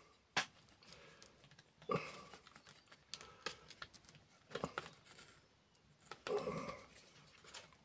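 Faint, scattered clicks, creaks and scrapes of an axle being pushed by hand through a tight hole in a wooden model locomotive chassis, with several sharp separate clicks as it catches and gives.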